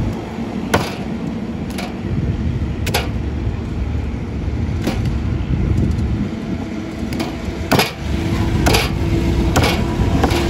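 About nine sharp knocks at uneven intervals, over a steady low rumble.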